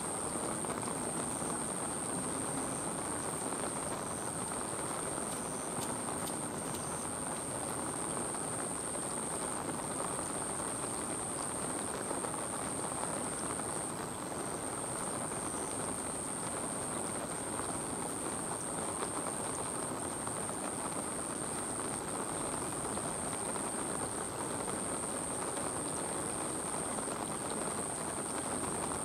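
Steady rushing of water pouring from a zoo rain tower, with a thin high whine underneath that drops out briefly every couple of seconds.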